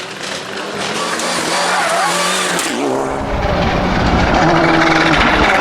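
Rally car approaching at speed, its engine note rising and falling with gear changes and growing louder, until it is close and running hard in the second half.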